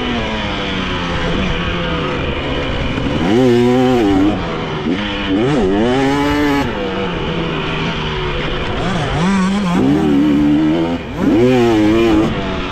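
Motocross dirt bike engine revving up and down about four times as the throttle is opened and closed through a lap, with a steady lower engine note between the revs.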